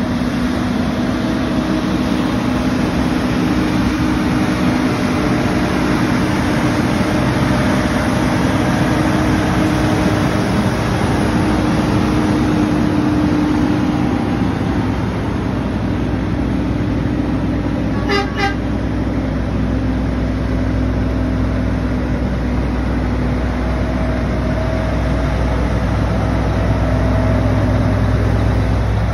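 Tractor-trailer race team haulers driving past in a line, their diesel engines and tyres running steadily. A truck horn toots briefly a little past the middle.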